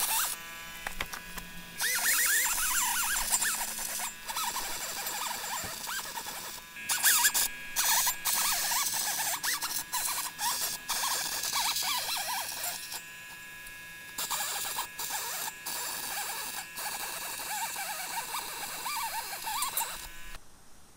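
Handheld rotary tool grinding surface rust off the face of a steel wheel hub, a harsh scraping whir with wavering squeals from the abrasive on the metal, in bouts with brief pauses. It stops just before the end.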